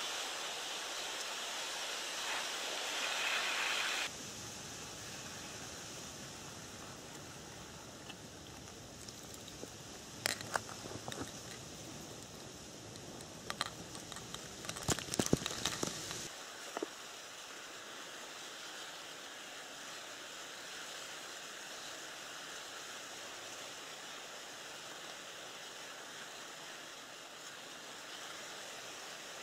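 Steady hiss of wind and small waves on a lake. About ten to sixteen seconds in comes a run of light clicks, taps and rustles as a caught roach on the hook is handled.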